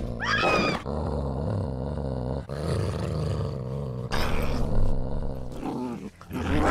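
Bull terrier growling low and continuously, teeth bared.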